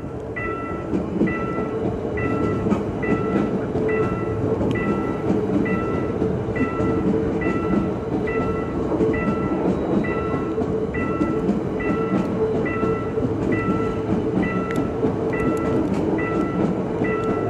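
A level-crossing warning bell chiming a little over once a second while an ITX-Cheongchun electric train passes close by, its wheels on the rails making a loud, steady rumble with scattered clacks. The rumble builds over the first second or two as the train arrives, then holds.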